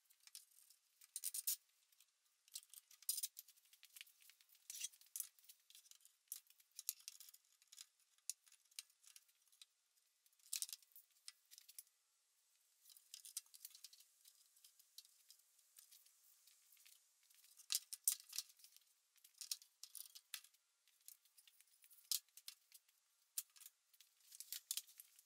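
Faint, irregular clicks and scrapes of wooden boards and metal bar clamps being handled during a panel glue-up, some clusters closely packed, with short pauses between them.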